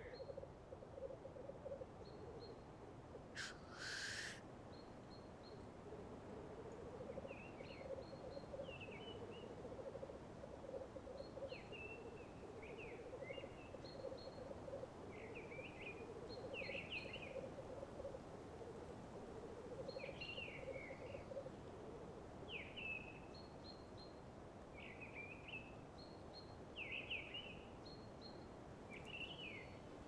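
Black grouse cocks at a lek giving their low, continuous bubbling song (rookooing), with one loud hissing call about three and a half seconds in. Small birds chirp over it.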